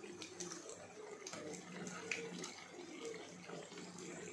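Hot oil sizzling with small, irregular crackles as flat rounds of sweet batter deep-fry in a pan.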